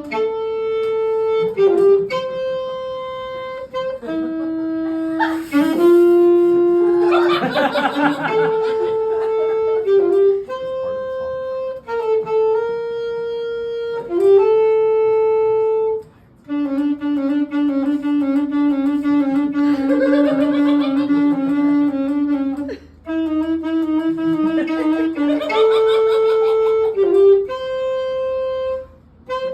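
Solo saxophone playing a slow melody of long held notes, with brief pauses for breath between phrases.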